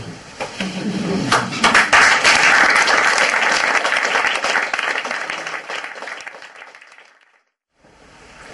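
Audience applauding: the clapping builds up over a couple of seconds, then slowly dies away.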